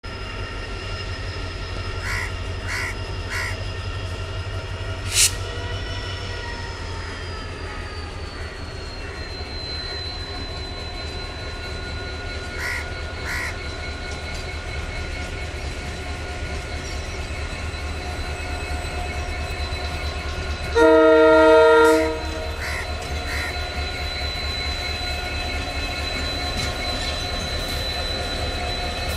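EMD WDP4D diesel-electric locomotive running light, its 16-cylinder EMD 710 engine humming with a steady low rumble and a thin high whine that slides down in pitch a few seconds in, then holds. A single locomotive horn blast of about a second sounds about two-thirds of the way through and is the loudest thing heard.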